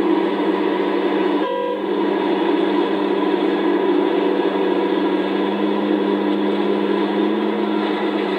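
Komatsu PC650-5 excavator's diesel engine working under load as it digs a bucket of dirt and loads a dump truck: a loud, steady drone with a held pitch that shifts slightly a little past the middle.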